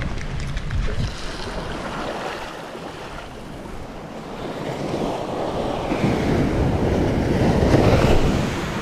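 Surf washing up the beach, with wind buffeting the microphone; a wave surge builds from about halfway and is loudest near the end.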